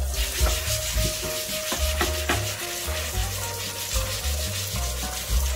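Soapy sponge scrubbing a Prusa textured steel print sheet back and forth, a steady rough rubbing, done to take the sheet's shiny finish off so prints will stick.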